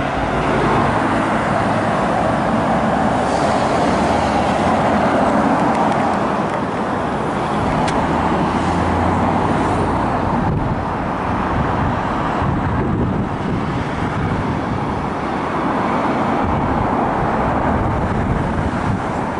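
Steady road traffic noise: cars driving along a street, with no single engine rising above the rest.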